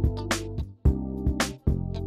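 Instrumental background music with a steady drum beat over held bass notes.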